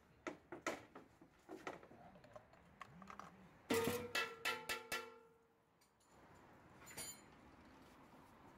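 Scattered light clicks, then a loud clatter of metal knocks that ring on for a moment about four seconds in, and one more ringing click near the end: metal parts or tools being handled under a car during an oil change.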